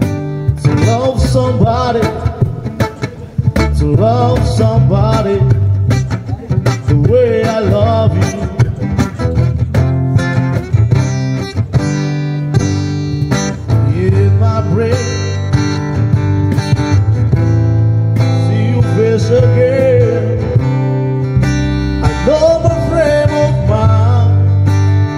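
Live acoustic band playing a slow song: strummed guitars and a hand-played cajón, with a man singing the melody over them.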